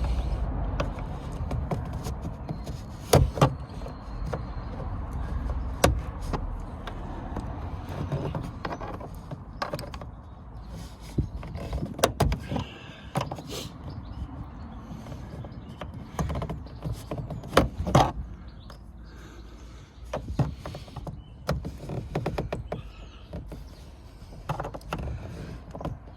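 Irregular plastic and metal clicks, knocks and scraping from hand work on a car door's inner trim while prying the manual window winder handle free of its retaining clip, with a few sharper knocks spread through.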